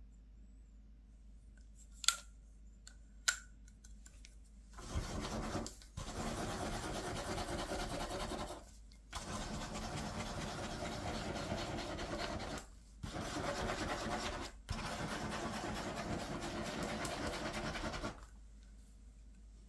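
Two sharp clicks, then a ballpoint pen scribbling loops on paper on a clipboard: long scratchy strokes for about thirteen seconds, broken by four brief pauses.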